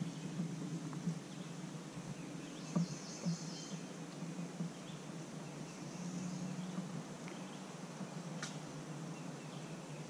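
Birds chirping faintly over a low steady hum, with a couple of faint clicks.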